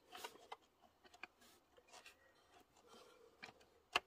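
Faint rubbing and light clicks of hands working a toothed rubber timing belt onto a Volkswagen Golf engine's sprockets, with one sharper click near the end.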